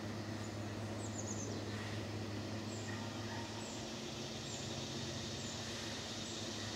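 Outdoor ambience: a steady low hum under an even hiss, with short, faint high chirps repeating about once a second.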